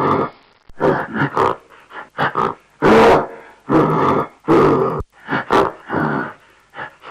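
Crocodile calling: a rapid series of about a dozen short, rough grunts, a few of them longer and louder.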